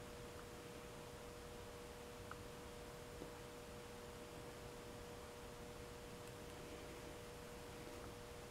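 Quiet room tone: a faint, steady electrical hum over light hiss, with a couple of tiny ticks.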